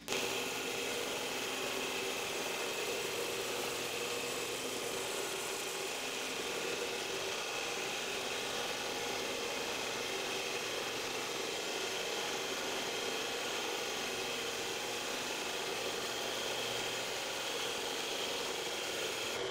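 Horizontal metal-cutting band saw running steadily through a metal bar on its original stock blade: an even machine noise with a steady whine in it, starting and stopping abruptly.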